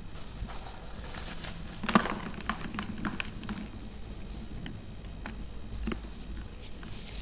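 Chunks of hardened baking soda crunched and crumbled, giving scattered crisp crackles; the loudest crunch comes about two seconds in, with a quick run of smaller crackles just after.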